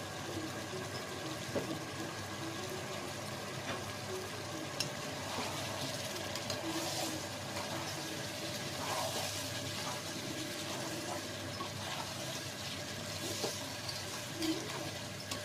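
Chicken pieces in a thick spice masala being stirred in a pot with a spatula over a gas flame, a steady low sizzle with scattered soft scrapes and knocks. The masala is being sautéed (koshano) after the last ground spices went in.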